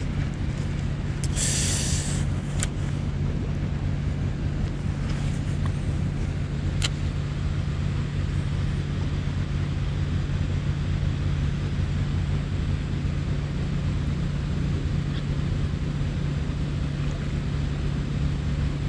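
An engine running steadily, a low even drone that holds one pitch throughout, over wind and surf noise. A few faint clicks come in the first seven seconds.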